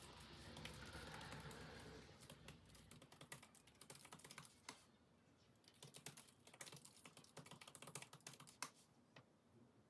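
Faint typing on a computer keyboard: rapid, irregular key clicks, with a soft hiss in the first two seconds.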